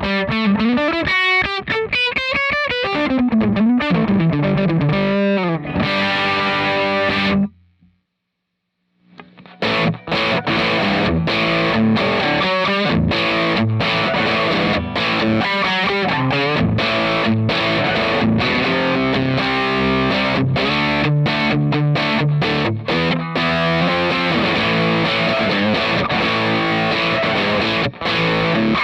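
Electric guitar played through a Cort x Moollon CMV15 amp with overdriven, distorted tone. For the first seven seconds or so there are fast single-note lead runs, which cut off suddenly. After a pause of about two seconds, rhythmic chord riffing with sharp picked attacks follows.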